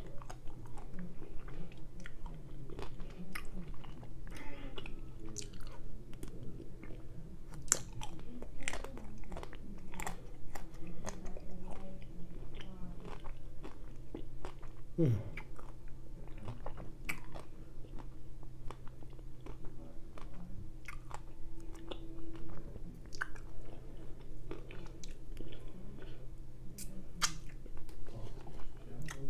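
Close-miked mouth sounds of a person biting and chewing the last of a chocolate-coated ice cream bar: many scattered short clicks and smacks. A steady low hum runs underneath.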